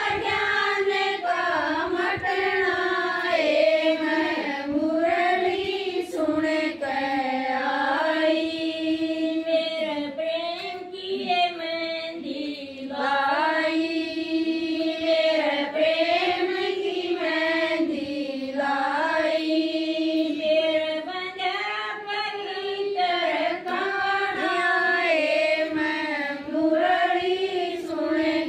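A woman singing a Haryanvi devotional bhajan without instruments, in long held, bending phrases with brief pauses between them.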